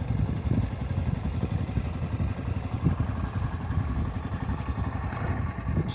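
A boat's engine running steadily with a fast, even low chugging.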